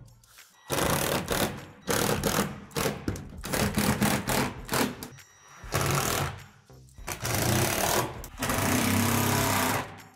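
Cordless drill driving screws into plastic shed roof panels, running in about six short spurts of one to two seconds each, the longest near the end.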